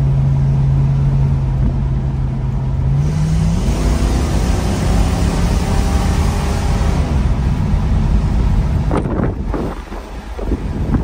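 1957 Plymouth's 301 cubic-inch polyspherical ("poly") V8, heard from inside the cabin, running steadily, then accelerating from about three seconds in, its pitch climbing and a rush of noise building over the next few seconds. Near the end it eases off and the sound drops, with a couple of knocks.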